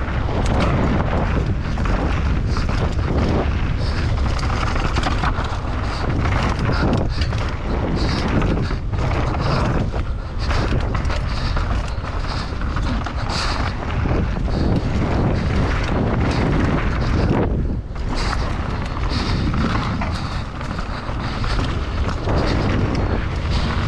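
Wind rushing over the microphone of a mountain bike descending a dirt trail at speed, with the tyres rolling on the dirt and the bike knocking and rattling over bumps.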